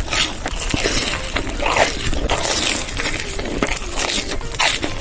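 Loud crunching and chewing of food right at the microphone: an irregular run of crackly bites.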